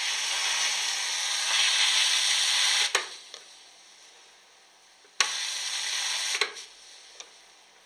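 Electric arc at an electrode in a cup of salt water, hissing steadily as it burns with a flame; the maker describes it as hydrogen ignited as it is freed at the arc. It cuts out with a sharp click about three seconds in, starts again with a click about two seconds later, and cuts out again after about a second.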